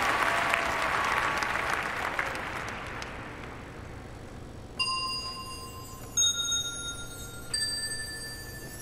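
Crowd applause dying away, then three single struck bell tones, each ringing on and each higher than the one before.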